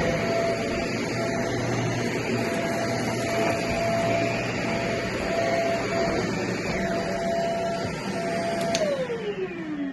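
Shark vacuum cleaner running over carpet, its motor holding a steady whine over a rough rattling crunch of small beads being sucked up. About nine seconds in there is a click and the motor winds down, its whine falling in pitch as it is switched off.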